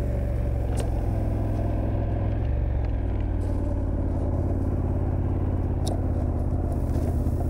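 KTM 1290 Super Adventure's V-twin engine running at steady revs while the motorcycle is ridden along, with a couple of faint clicks.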